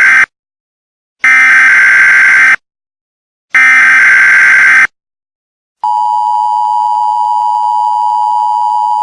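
Emergency Alert System SAME header: three loud bursts of high digital data tones, each over a second long with about a second of silence between them, the first already under way. About six seconds in, the EAS two-tone attention signal starts as a steady, blaring tone, announcing a new alert.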